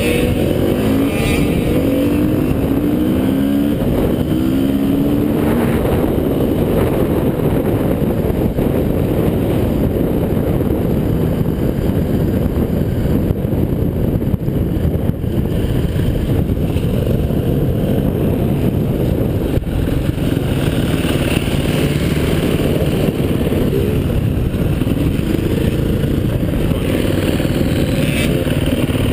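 Husaberg FE 350's single-cylinder four-stroke engine running hard on a dirt track, the revs climbing in short steps through the gears a few seconds in and again near the end.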